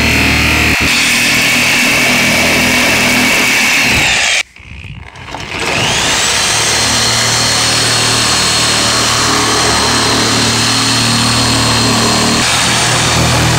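Chicago Electric reciprocating saw cutting through the plastic wall of a chemical tote, running steadily. About four and a half seconds in it stops for a second, then spins back up and keeps cutting.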